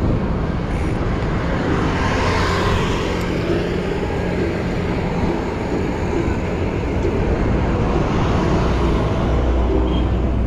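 Steady wind rumble on an action camera's microphone while cycling, mixed with road traffic noise. A louder swell about two seconds in fits a passing vehicle.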